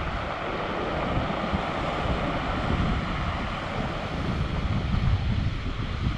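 Heavy Pacific surf from a typhoon swell breaking and rushing, with strong wind buffeting the microphone; the rush swells briefly louder about five seconds in.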